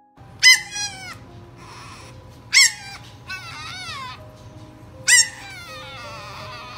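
French bulldog puppy yapping in three high, sharp yelps that fall in pitch, each trailing off into a wavering, whiny grumble: the puppy complaining.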